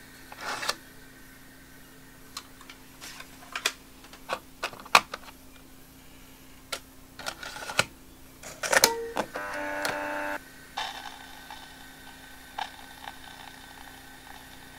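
Clicks and clunks of an 8mm tape cassette going into a Kodak Kodavision Series 2000 camcorder, its compartment shut and its buttons pressed. Just after nine seconds the machine buzzes for about a second as it loads the tape, then a faint steady whir follows as the tape runs.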